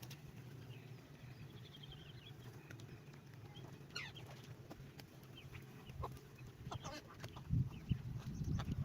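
Birds calling with short chirps and clucks over a steady low rumble, with a few low thumps near the end.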